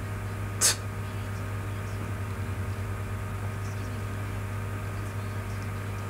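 Steady low electrical hum with faint hiss, unchanging throughout, and one short sharp noise less than a second in.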